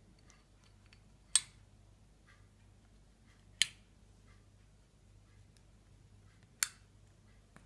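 Switches on metal lamp sockets of Edison-style filament bulbs clicking off one at a time: three sharp clicks, about two to three seconds apart.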